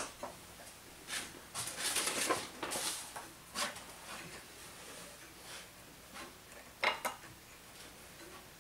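Small metal tools and parts clinking, rubbing and scraping as they are handled, with a sharp click at the start, a burst of clatter in the first few seconds and another click about seven seconds in.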